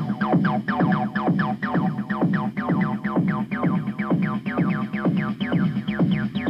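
Techno music: short synth notes that fall in pitch repeat about three times a second over a steady bass line.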